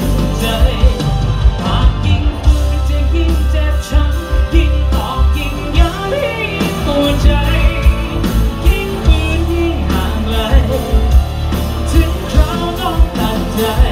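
Live pop-rock band playing loudly through a concert PA, heard from the crowd: a male singer sings into a handheld microphone over drums and electric guitar.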